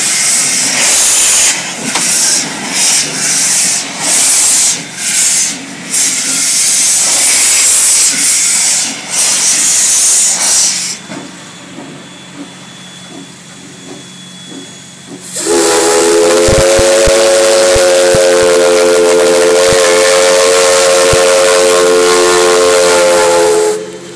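Steam locomotive venting steam in loud, irregular hissing blasts for about ten seconds. After a short lull, its steam whistle sounds one long steady blast of about eight seconds, which cuts off sharply near the end.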